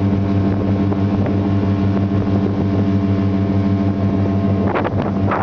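Boat outboard motor running at a steady speed, an even low drone.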